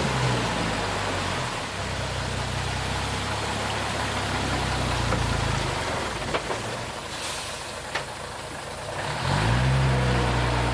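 Csepel D566 truck's diesel engine labouring under load as it crawls off-road, easing back for a few seconds with two sharp knocks, then revving up hard about nine seconds in.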